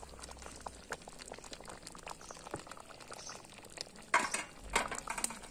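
Thick dried-fig jam bubbling and popping at a rolling boil in a large metal pan, with a wooden spoon stirring through it at first. A few louder pops or splutters come a little after four seconds in.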